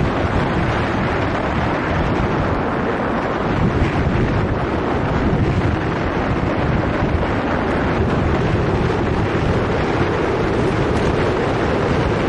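Steady wind buffeting the microphone of a camera riding on a moving bicycle, a loud even rush with a heavy low rumble.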